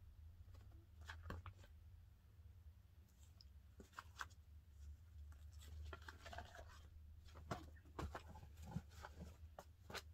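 Faint rustling and flicking of paper sheets as a stack of printed forms is leafed through, with scattered soft clicks over a low steady hum.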